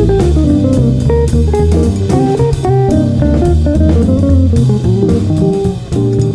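Background music: jazzy guitar with bass guitar and drum kit.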